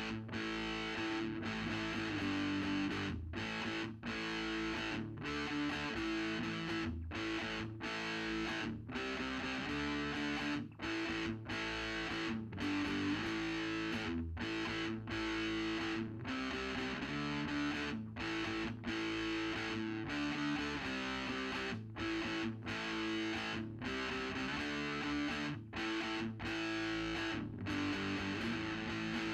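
Electric guitar played through the overdrive channel of an Ever Play RG60 solid-state 2x12 combo amp: a distorted chord riff, cut off by brief stops again and again.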